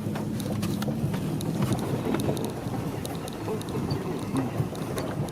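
Vehicle engine running steadily with a rough, noisy rumble, probably wind on the microphone mixed in, and scattered small ticks.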